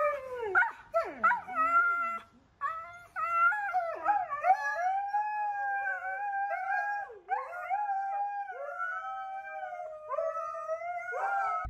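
Two huskies howling and yowling at each other: short rising and falling yowls at first, then, after a brief pause, long wavering howls.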